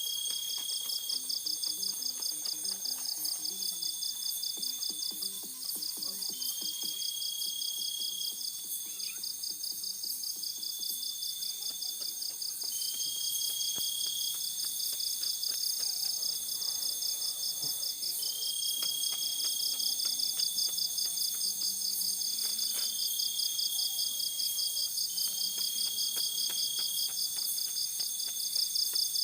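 Night chorus of insects such as crickets: a fast-pulsing high trill over several steady high-pitched tones, with a short rising call repeating about every two seconds.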